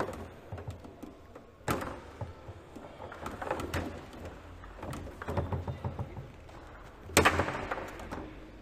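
Leonhart foosball table in play: sharp cracks of the ball being shot and striking the table, one about two seconds in and the loudest near the end, with bursts of quick clicking and clattering from the rods and ball in between.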